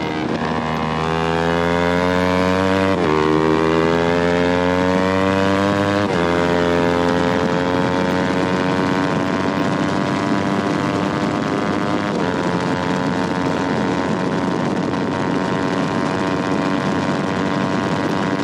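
Yamaha R3's parallel-twin engine accelerating with rising pitch, upshifting about three and six seconds in, then holding a steady engine speed.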